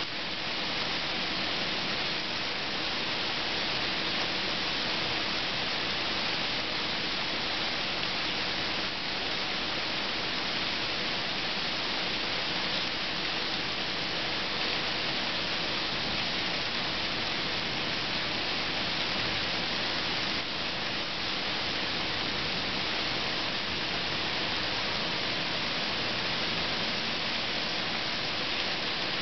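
Heavy rain falling in a steady, unbroken downpour during a thunderstorm.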